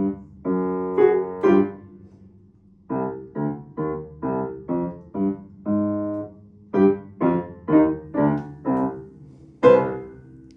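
Piano playing a piece in short detached chords, with a brief pause about a quarter of the way through. Near the end it closes on a loud final note that rings away.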